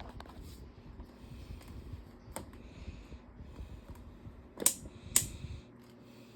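Lasko 18-inch table fan running on low speed, with a few sharp clicks. Two louder clicks come close together near the end, then a low steady motor hum is left on its own.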